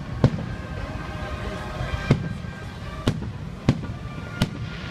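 Fireworks bursting overhead: five sharp bangs at uneven intervals over a steady background rumble.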